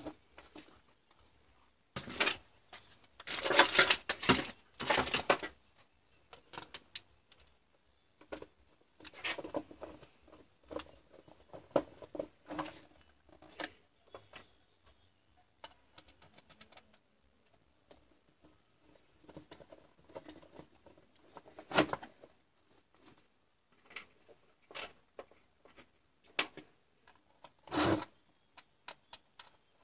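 Hard plastic case of a 14.4 V cordless drill battery pack being handled and turned over on a workbench: irregular clicks, scrapes and knocks, with a louder run of scraping early on and two sharp knocks near the end.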